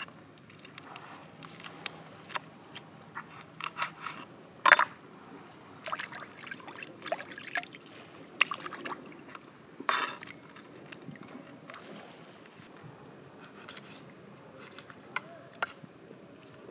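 Hands splashing in shallow water, with drips, trickles and irregular splashes, the loudest about 5 and 10 seconds in.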